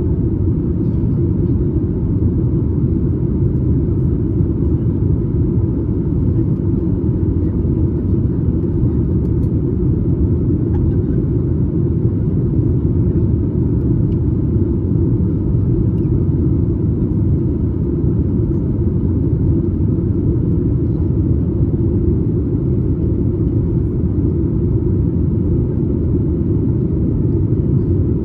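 Steady cabin noise of a Boeing 737 MAX 8 in flight: a constant low rumble of airflow and its CFM LEAP-1B engines, heard from a window seat just behind the wing.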